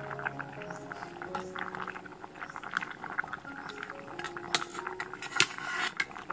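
Water at a rolling boil in an aluminium pot. A metal ladle clinks against the pot several times as tamarind pods are lowered in, with the sharpest clinks in the second half. Soft background music plays underneath.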